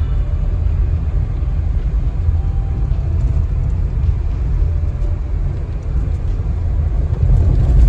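Subaru Crosstrek driving on an unpaved dirt road, heard from inside the cabin: a steady low rumble of tyres on gravel and engine, with no break.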